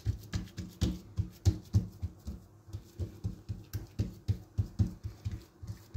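Palms patting and pressing oiled msemen dough thin against a countertop: soft, dull slaps about four times a second.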